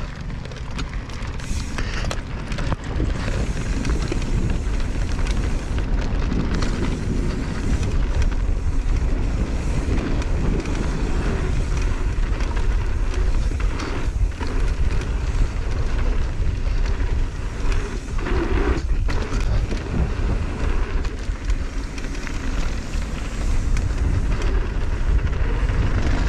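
Wind rumbling over a GoPro microphone as a mountain bike rolls downhill on a dirt trail, with tyre noise and a few sharper knocks from the bike over bumps. The rumble builds over the first couple of seconds.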